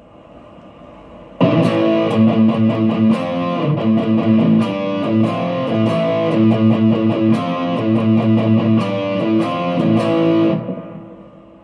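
Electric guitar played through a NUX Plexi Crunch overdrive pedal with its gain turned up: an overdriven riff of picked notes and chords. It starts about a second and a half in and rings out near the end.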